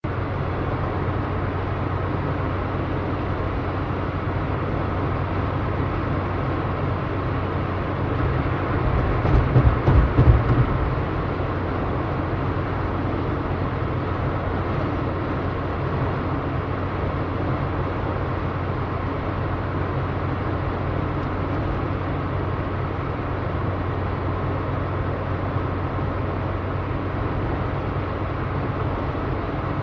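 A car driving, its engine and road noise a steady drone with a strong low hum. About a third of the way in there is a louder low rumble lasting a couple of seconds, then the steady drone resumes.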